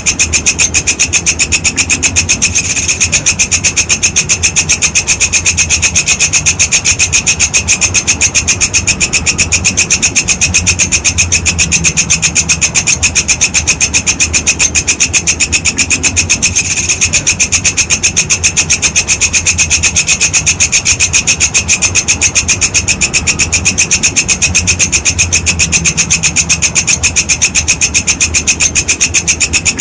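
Walang kecek insect stridulating: a continuous, fast, rasping pulsed trill, strongest in two high bands, with brief dips about three and seventeen seconds in.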